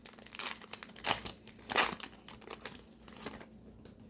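Crinkling and tearing of a foil trading-card pack wrapper as it is handled and ripped open, in irregular crackles and scrapes that are busiest in the first two seconds.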